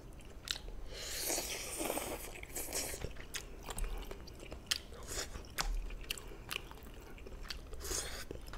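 Close-miked eating of jjamppong noodles: wet chewing with many small mouth clicks, and a long slurp of noodles about a second in and another near the end.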